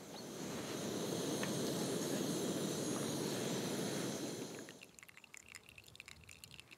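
Backpacking gas stove burner hissing steadily, cutting off about two-thirds of the way through. After it come quieter, irregular ticks and drips of water.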